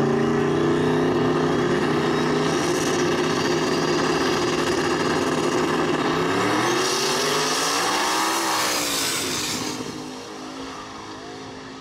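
Drag-racing engines of two Fox-body Mustangs held at steady high revs on the starting line. About six and a half seconds in they launch: the engine note climbs, then falls and fades as the cars pull away down the track.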